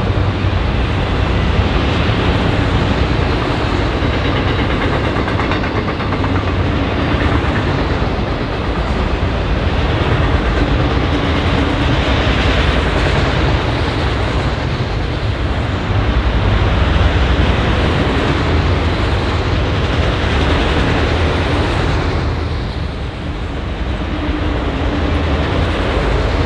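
A freight train of multi-level autorack cars rolling past close by: a steady, loud rumble of steel wheels running on the rails, dipping briefly near the end.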